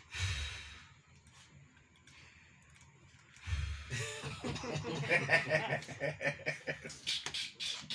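A short breathy sound at the start and a few quiet seconds, then a person laughing and chuckling through the second half, mixed with a little talk.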